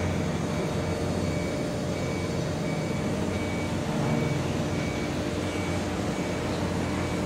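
Steady low drone of ship diesel engines, with a thin high electronic beep repeating a little faster than once a second.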